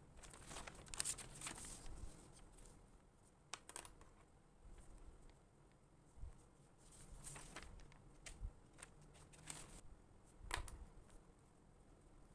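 Faint rustling and scraping of notebook paper being handled, with a few light taps in between.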